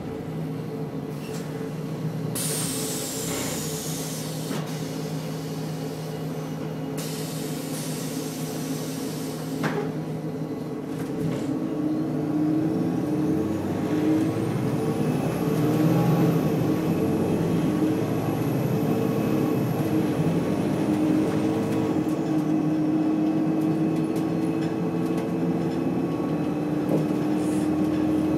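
Volvo B7RLE bus's seven-litre six-cylinder diesel heard from inside the saloon, idling while compressed air hisses out twice in the first ten seconds, the first hiss with a falling whistle. From about twelve seconds in, the engine pulls away and rises in pitch under a faint high whine that rises and falls.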